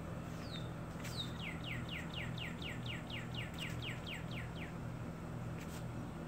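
Northern cardinal singing: a single high down-slurred note, then a fast run of about a dozen down-slurred notes at roughly four a second, over a steady low hum.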